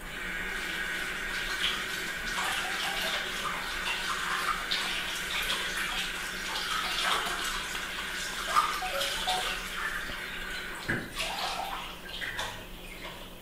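Steady running water that starts suddenly and dies away near the end, with a few light knocks over it.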